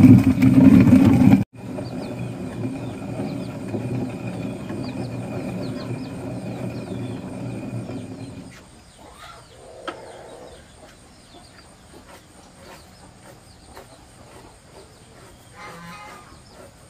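A motor hums steadily for the first eight seconds or so and then stops. Chickens follow: many short high chirps, and a hen clucking twice near the end.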